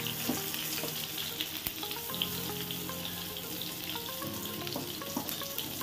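Eggplant pieces sizzling steadily as they fry in hot mustard oil in a wok. Faint background music with held notes comes in about two seconds in.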